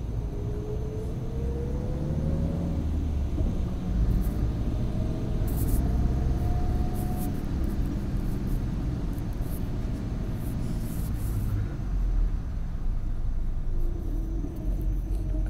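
Car driving on a wet road: a steady low rumble of engine and tyres, with a faint whine that rises slowly as the car gathers speed, once in the first few seconds and again around the middle.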